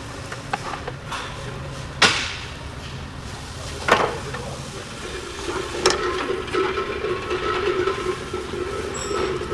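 Two sharp metal knocks about two seconds apart, then a third knock followed by a steady whirring hum for the last few seconds, typical of tools being used on metal during repair work.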